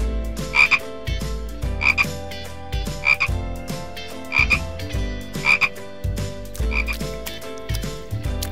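Frog croaking: short doubled calls, repeated about once every 1.2 seconds, six in all.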